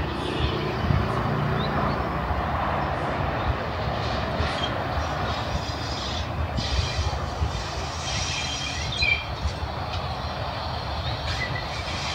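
Bulleid Battle of Britain class steam locomotive 92 Squadron's train on the line, a steady rumble with rail and wheel noise.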